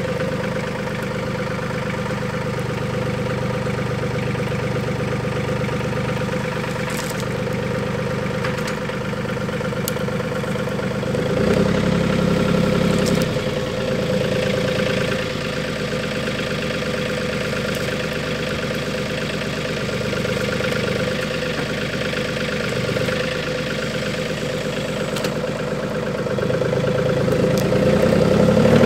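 RK 37 compact tractor's diesel engine running steadily while it works a grapple holding a saw log. It runs louder for a couple of seconds around the middle and grows louder near the end as the tractor comes closer.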